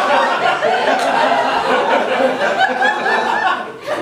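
Audience laughing loudly at an improv comedy scene, the laughter fading about three and a half seconds in.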